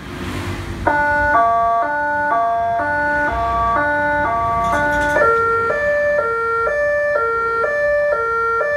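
Electronic emergency-vehicle siren sounding a hi-lo two-tone pattern: two chords alternate about twice a second after a brief rush of noise at the start. About five seconds in, it switches to a different, lower-sounding pair of tones.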